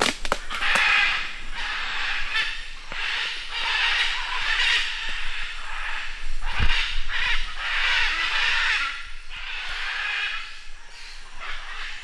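A flock of macaws screeching at people passing through: repeated harsh squawks, one every second or so, some overlapping. A single thump about halfway through.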